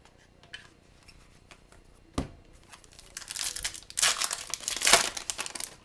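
Plastic wrapper of a hockey card pack crinkling and tearing as the pack is opened, in dense crackling bursts over the last few seconds. A single sharp tap comes about two seconds in.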